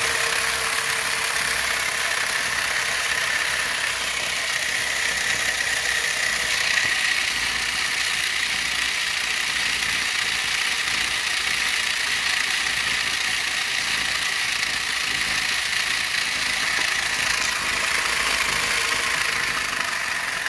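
Large 3D-printed pulse motor driven at 24 volts, running steadily at speed with a rattly whir.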